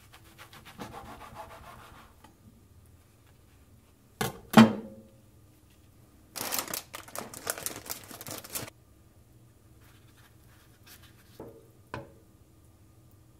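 A kitchen knife slicing fried tofu pouches (abura-age) on a plastic cutting board. A soft scraping cut comes first, then two sharp knocks on the board, the second the loudest, then about two seconds of rustling and scraping as the cut pieces are handled, and two light taps near the end.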